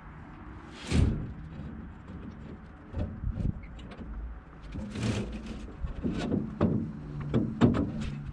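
Heavy black mesh truck tarp being handled and shaken out inside a steel dump truck bed: two loud swishes of the fabric, then a quick run of knocks and clunks against the steel near the end, over a low steady hum.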